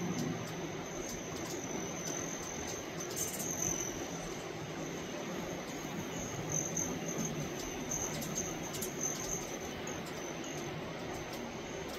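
Insects chirring in a steady high-pitched trill, over a low, even rumble.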